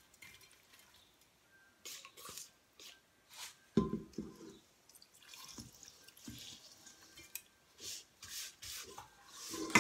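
A gloved hand scoops small fish mixed with roasted rice out of a stainless steel bowl and packs them into a glass jar, making short scraping and rustling sounds. There is a sharp knock with a short ring about four seconds in, and another knock at the end, as the metal bowl meets the jar.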